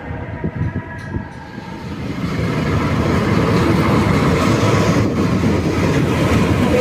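A train running along the tracks: a few short knocks, then its rumble swells about two seconds in and holds steady and loud.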